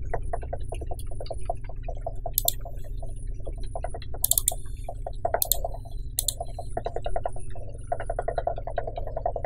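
Computer keyboard typing and mouse clicks in quick runs, with a few sharper clicks standing out, over a steady low hum.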